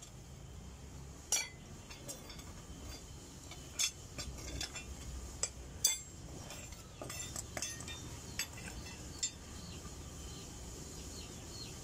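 Scattered sharp metallic clinks of hand-forged steel knife blanks being shifted and set down with tongs, knocking against one another; the loudest come about a second and a half, four, and six seconds in.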